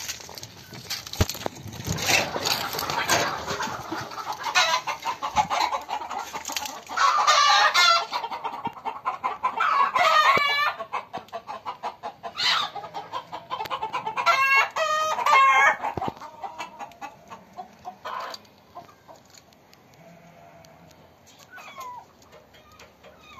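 Chickens clucking, with a rooster crowing a few times in the middle of the stretch; the calls die down near the end.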